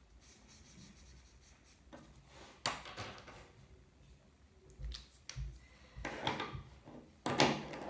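Light clicks and knocks of plastic felt-tip markers being handled, capped and set down on a tabletop among other markers. The loudest knock comes near the end.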